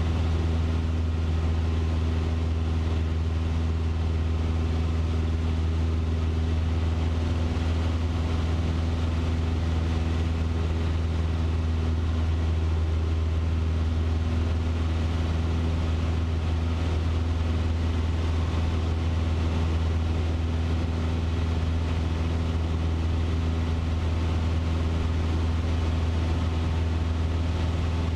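Cessna 150's four-cylinder Continental O-200 engine and propeller in cruise flight, heard from inside the cabin as a steady, even drone with a deep hum and no change in pitch.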